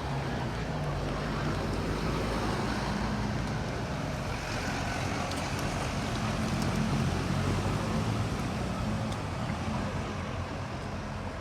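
Street traffic: a motor vehicle's engine hum with tyre noise, swelling to its loudest a little past halfway, then easing off toward the end.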